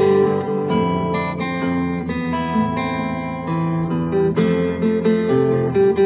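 Background music played on acoustic guitar, with notes and chords ringing on one after another.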